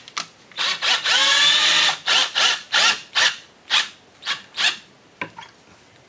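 Cordless drill driving wood screws into a pine table leg and brace. A few short bursts lead into a run of about a second, then about seven quick trigger pulses as the screw is driven home. Each burst rises in pitch as the motor spins up.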